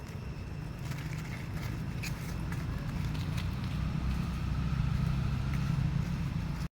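Low rumble of a motor vehicle growing gradually louder, with a few small clicks.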